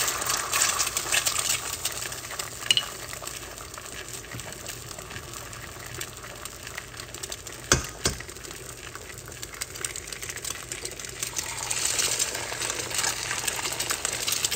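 Eggs sizzling and crackling in hot avocado oil in a stainless steel frying pan. The sizzle swells as the first egg hits the oil and again about twelve seconds in as the second egg goes in, with a single sharp knock about halfway through.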